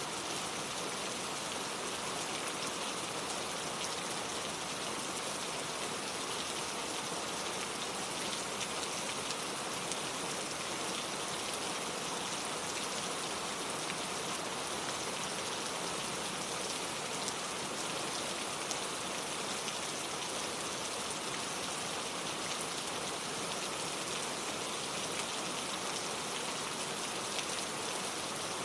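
Steady rain falling, with dense fine drop patter on surfaces.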